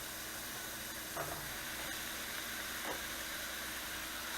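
Sliced onions sizzling in the bottom of a cast iron chicken fryer: a steady, even hiss, with two faint light taps about a second and three seconds in.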